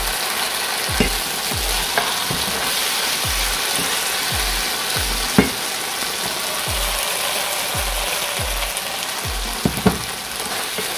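Chicken livers in a thickening sauce sizzling in a nonstick frying pan while a wooden spoon stirs them; the dish is nearly cooked. A few sharp knocks of the spoon against the pan come through the hiss, the loudest about halfway through and near the end.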